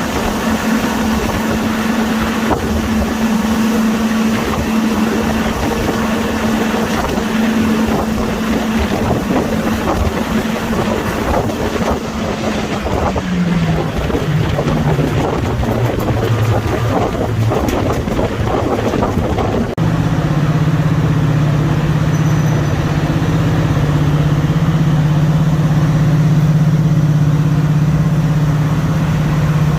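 Class 55 Deltic locomotive's twin Napier Deltic two-stroke opposed-piston diesel engines thrashing under power. The engine note drops in pitch about 13 seconds in, and about 20 seconds in it changes suddenly to a lower, louder steady drone.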